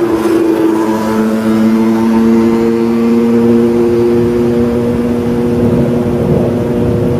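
A steady drone of several held low tones over a constant hiss, part of a layered ambient soundscape mix.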